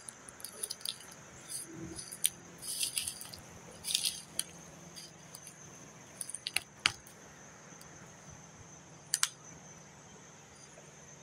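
Footsteps through storm-felled brush: twigs and dry branches crackling and snapping underfoot in irregular clusters, the sharpest snaps about seven and nine seconds in, over a steady high-pitched drone.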